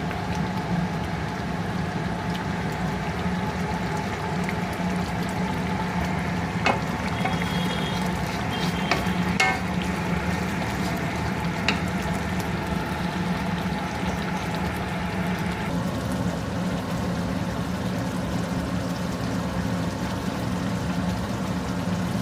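Chicken gravy cooking in a pan, a steady sizzle over a low hum, with a few light clicks near the middle.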